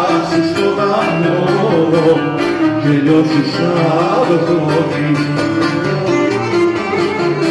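Live Greek folk music: an oud and a guitar playing together, steady and continuous.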